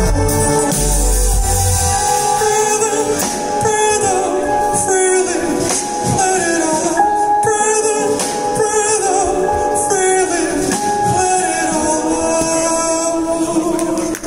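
Progressive rock band playing live, heard from within the audience: a male lead vocal with backing voices over keyboard and cymbals. The deep bass drops out about two seconds in.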